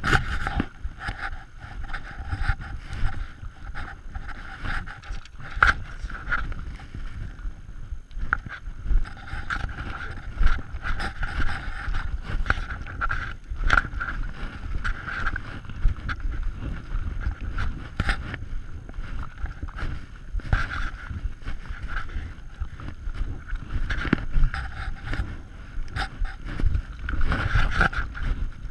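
Walking through snow-covered brush: irregular crunching footsteps and branches scraping and brushing against jacket and fishing rods, close to the body-mounted microphone, over a low rumble of wind and handling noise.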